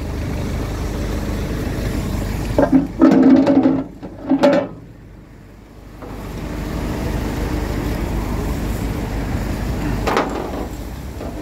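Vehicle engine running steadily, with a louder stretch of short pitched bursts about three to five seconds in and a brief lull just after.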